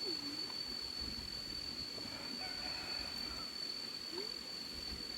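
Quiet rural outdoor background: a steady high-pitched whine, with a few faint short calls.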